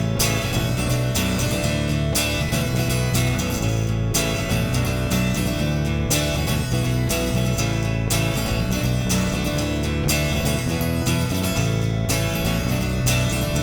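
Background music: an instrumental intro led by strummed guitar, with a steady beat.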